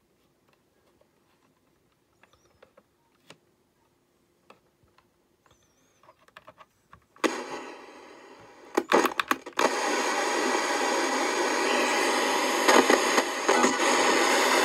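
Faint clicks of the plastic buttons on a 1984 Panasonic-made Boots RTV 5 TV/clock radio, then about seven seconds in its small speaker abruptly switches on with loud static hiss, a few sharp clicks, and steady hiss from about ten seconds in, the set not yet tuned to a station.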